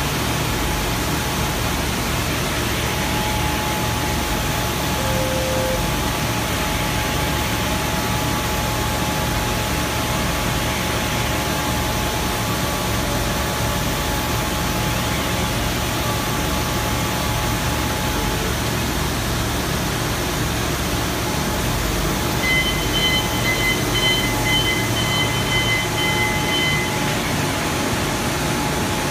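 Steady hum and hiss of factory machinery, with a faint steady tone through the middle and a higher whine from about two-thirds of the way in until near the end.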